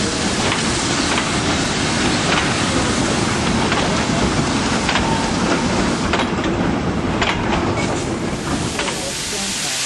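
Goods train of four-wheeled wagons and brake vans rolling past, a steady rumble with the wheels clacking irregularly over rail joints. The noise eases a little near the end as the last van passes.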